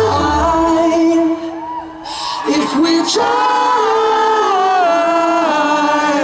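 Live pop ballad: a male lead voice singing through the PA over light accompaniment. The low bass drops away about half a second in, leaving the voice nearly bare.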